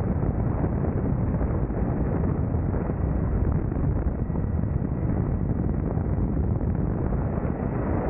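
Helicopter hovering with its door open: steady rotor and engine noise mixed with heavy wind buffeting on the microphone, with no pauses or changes.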